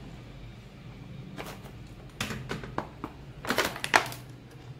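Cardboard handling: a thin printed cardboard box and its inner cardboard tray rubbing and scraping as the tray is slid out. It is a series of short scrapes and clicks that starts about a second and a half in and is loudest near the end.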